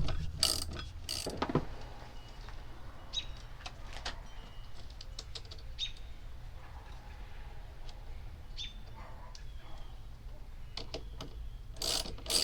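A ratchet wrench clicking in short runs about a second apart, at the start and again near the end. In between come faint, short, high bird chirps and scattered light ticks over a steady low rumble.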